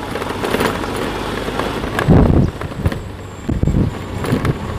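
Motorbike running at low speed, with wind rumbling on the microphone and a couple of low buffets about two seconds and three and a half seconds in.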